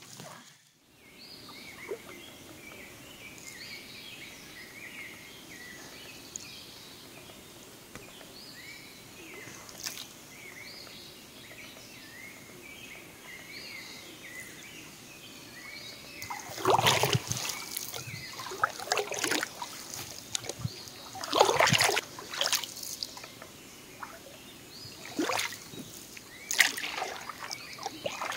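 Small birds chirping over the calm lake at dawn. From a little past halfway, a wooden canoe paddle dips and pulls through the water, with splashes and drips at each stroke about four seconds apart.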